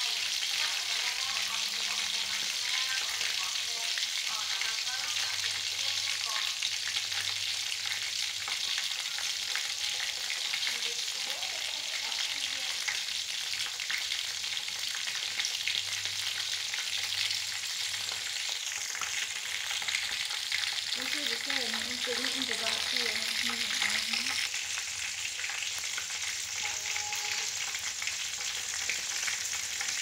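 Pieces of mouse meat frying in hot oil in a steel wok: a steady sizzle with fine crackling.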